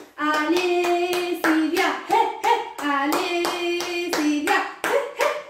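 A woman singing in long held notes while hands clap a quick, steady beat.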